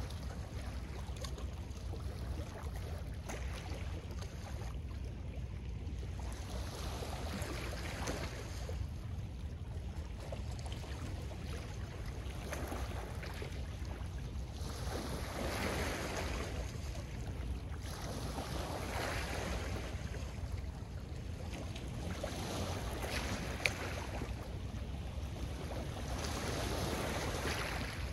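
Small lake waves washing onto a pebble shore, swelling and fading every few seconds, over a steady low rumble of wind on the microphone. One sharp tick about two-thirds of the way through.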